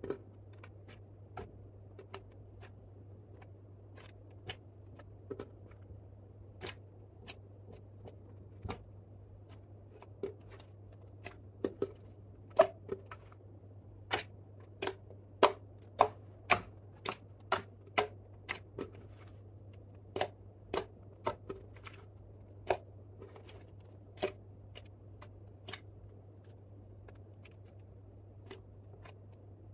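Hands kneading and squeezing clear slime mixed with lipstick and eyeshadow, making irregular sharp clicks and pops. The pops are sparse at first, come thick and fast through the middle, then thin out again near the end.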